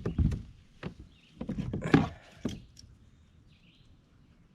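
A run of knocks, thumps and rustles in the first two and a half seconds as a freshly caught largemouth bass is handled and unhooked, then quieter, with a few faint high chirps.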